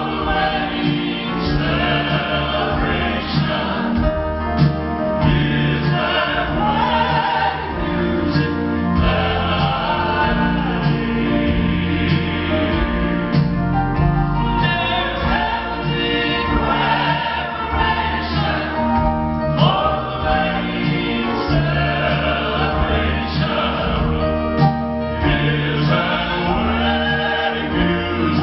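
Two southern gospel male vocal groups singing together in close harmony into microphones, backed by a live band with upright bass, amplified through a PA.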